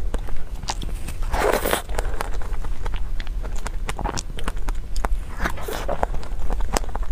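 Close-miked eating sounds of soft whipped cream and taro paste: frequent wet mouth clicks and smacks. There are two longer scraping swishes of a plastic spoon in the plastic cup, about a second and a half in and again around five and a half seconds.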